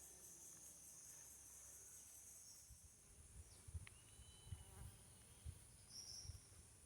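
Near silence: a faint, steady high-pitched insect drone, with a few soft low thumps in the second half.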